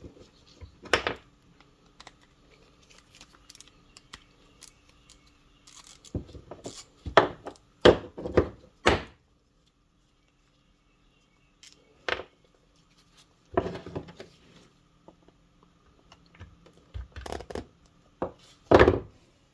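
Scattered clicks and knocks of a socket wrench and small metal carburetor parts handled on a workbench, in short clusters with quiet gaps, as the two float-bowl screws are taken out and the bowl is pried off a Lawn-Boy mower carburetor.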